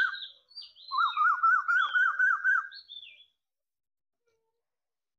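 Birds singing close by: a quick run of repeated warbling notes, about four a second, with higher sweeping whistled calls over it. It comes in two bursts, breaks off briefly about half a second in, and stops about three seconds in.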